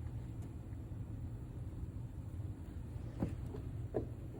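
Two short, gentle honks from a pet toucan, about three and four seconds in, over a steady low room hum.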